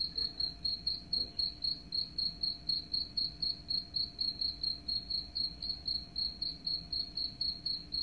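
Recorded cricket chirping played back through a smartphone speaker, a cricket-sound track meant to repel rats: one high, even chirp repeated steadily about four times a second.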